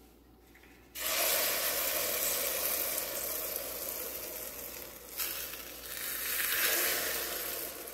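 Beaten egg with ham sizzling as it is poured onto the hot non-stick plates of a two-section electric omelette maker. The sizzle starts suddenly about a second in and surges again about five seconds in as more egg goes in.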